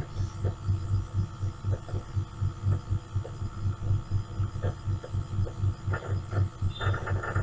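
Low hum throbbing in a regular beat about three times a second, with a few soft clicks near the end.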